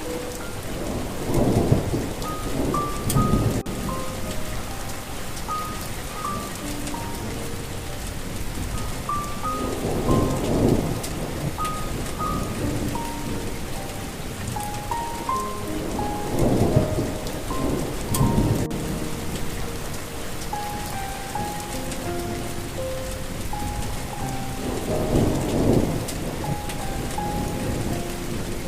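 Steady rain with thunder rumbling four times, under a slow, soft melody of single notes stepping up and down.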